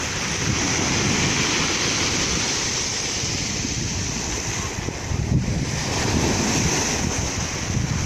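Black Sea surf breaking over rocks and washing up a pebble beach in a continuous foaming rush.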